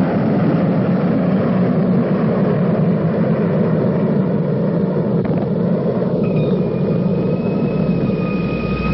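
Rocket launch: the steady, loud rumble of rocket engines at liftoff. About six seconds in, a high held musical tone joins in.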